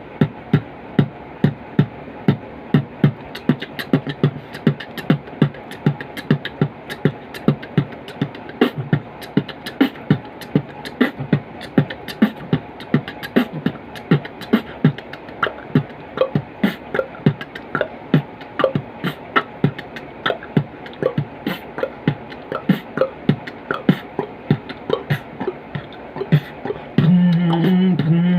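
Beatboxing: a steady rhythmic beat of mouth-made kick and snare sounds, a few strokes a second. About a second before the end it switches to a louder sustained bass note made with the voice.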